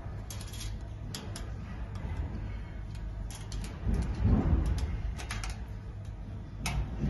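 Irregular small metallic clicks and taps as a screwdriver and pliers work a screw and nut on a gold-plated iron arch frame, with a louder dull bump about four seconds in.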